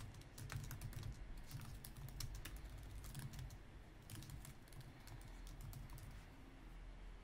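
Faint, irregular keystrokes on a computer keyboard as a phrase is typed out.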